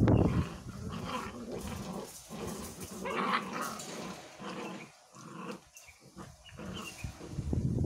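A litter of young puppies tussling over a cloth together, with play growls and small yaps; louder at the start and near the end, quieter a little past the middle.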